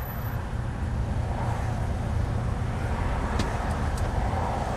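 Heavy truck's diesel engine running at low revs, heard inside the cab as a steady low hum while crawling in a traffic queue. Two short clicks come about three and a half seconds in.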